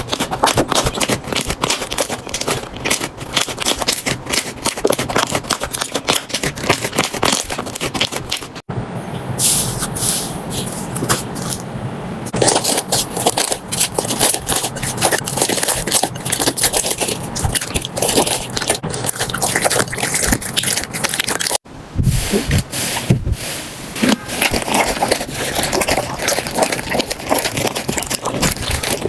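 Slime being handled and pressed by hand, giving a dense run of crackling and clicking. The texture changes abruptly twice, about a third of the way in and again about three quarters through.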